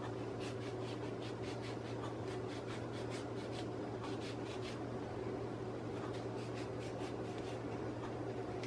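Faint scratching strokes of a knife paring peel from an orange, in two runs, over a steady low hum.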